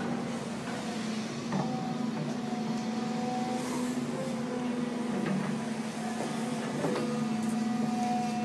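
Construction machinery engine running at a steady speed, a constant droning hum with a few faint knocks.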